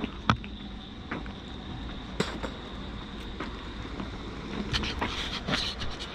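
Low wind rumble on the microphone with a faint steady high whine, broken by scattered light clicks and taps.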